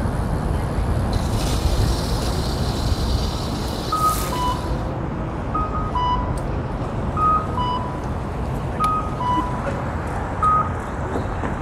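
Accessible pedestrian crossing signal chiming a two-note descending beep, a higher note then a lower one, repeating about every one and a half seconds from about four seconds in: the audible walk signal for pedestrians. Underneath runs steady traffic and wind noise, with a hiss for a few seconds about a second in.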